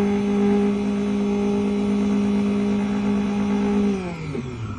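Electric motor of a key-cutting machine running with a steady hum, then switched off about four seconds in, its pitch falling as it spins down.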